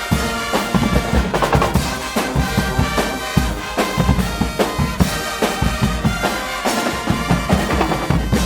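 Guggenmusik carnival band playing: bass drums and snares pounding out a dense beat under brass horns holding a melody.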